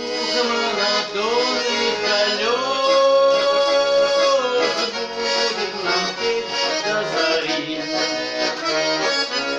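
Garmon (Russian accordion) playing the song's melody over a steady accompaniment, with long held chords.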